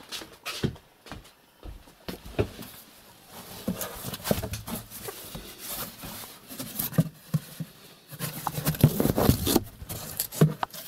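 Handling noise of kittens being set down into a cardboard box: scuffs, scratches and short knocks against the cardboard, with a denser stretch of rustling near the end.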